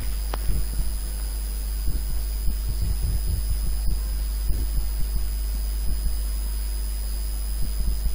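A steady low hum with scattered, irregular soft low thumps.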